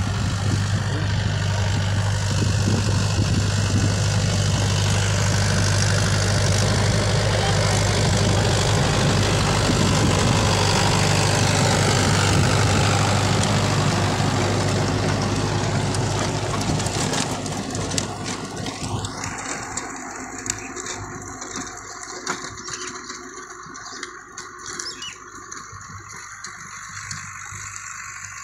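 Mahindra tractor's diesel engine running under load while it drives a rotavator through the soil: a steady, loud low drone. About 18 seconds in, the drone fades and the sound drops to a quieter level with a few clicks.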